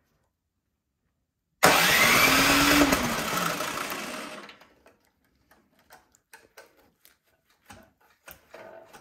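Snow blower's electric starter cranking the engine with the spark plug out. It comes in suddenly about one and a half seconds in, spins up, then winds down and stops. The engine never fires because there is no spark, the sign of a failed ignition coil.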